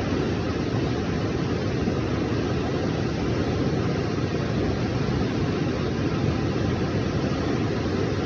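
Fast-flowing floodwater rushing past in a flash flood: a steady, even wash of noise with no breaks.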